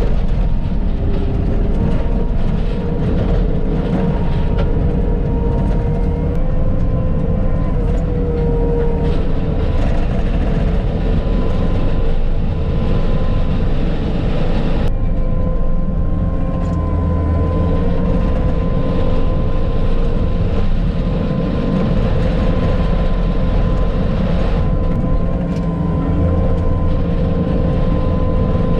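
Bobcat T650 compact track loader running steadily at working speed while grading gravel, a deep engine drone with a steady whine over it. The sound changes abruptly about halfway through.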